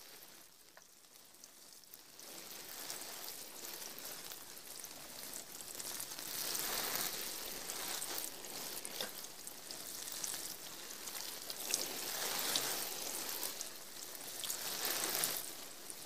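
Rain falling: a soft, even hiss with scattered drop ticks. It comes in about two seconds in and rises and falls in waves.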